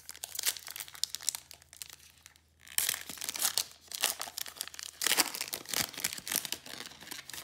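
Foil wrapper of a Prizm basketball card pack being torn open and crinkled in the hands, in two spells of crackling. The second spell is louder and follows a brief pause about two and a half seconds in.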